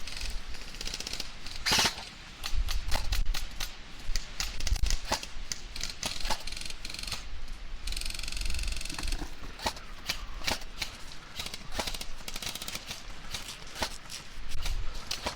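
Airsoft guns firing: scattered sharp shots and short bursts throughout, with a fast full-auto burst about eight seconds in that lasts about a second.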